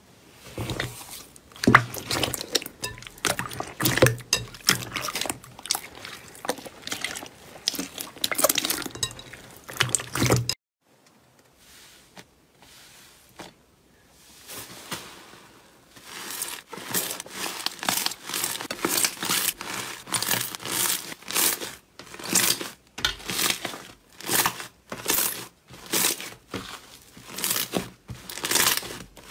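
Slime being squeezed and worked by hand, giving dense crackling and popping clicks. The sound drops off abruptly about ten seconds in, stays quiet for a few seconds, then the popping picks up again.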